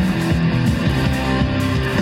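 A rock song with electric guitar and a steady drum beat, playing loud through a JBL Xtreme 2 portable Bluetooth speaker.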